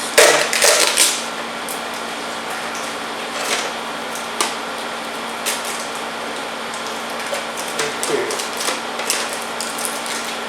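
Plastic covering crinkling and rustling as it is handled and pulled off, loudest in the first second, then scattered clicks and taps of handling. A room air conditioner hums steadily underneath.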